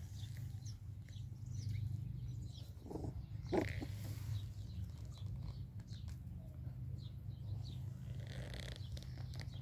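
Puppies moving about on bare dirt, with a brief puppy squeak about three and a half seconds in, over a steady low hum.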